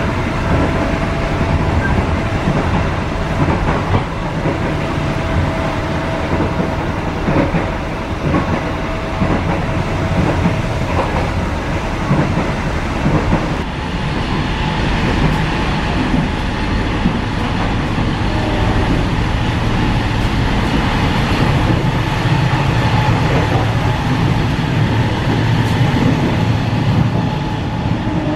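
Passenger train running at speed, heard from inside a mild-steel economy coach: a steady rumble of wheels on rail with a clickety-clack over the rail joints. The hiss in the upper range grows about halfway through.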